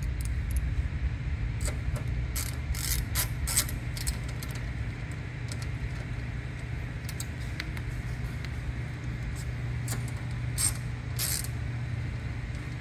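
Scattered metallic clicks and clinks of screws and hand tools as the shelf's small rail is screwed in, over a steady low hum.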